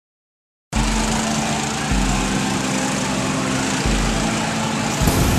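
Go-kart engines running together in a loud, steady drone, starting abruptly less than a second in. The hum shifts in pitch every couple of seconds.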